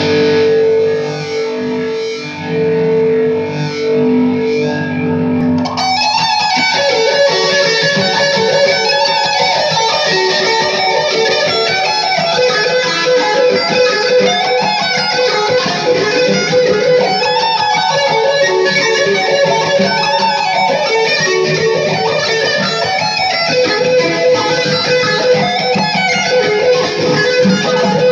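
Electric guitar: a note rings on for about the first six seconds, then a fast two-handed tapping sequence begins and keeps returning to a repeated pedal tone under the moving notes.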